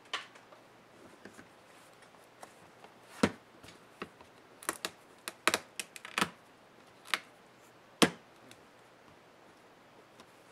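Irregular sharp clicks and taps of hands working on a laptop's plastic display back cover. There are about a dozen, with the loudest about three seconds in and again about eight seconds in.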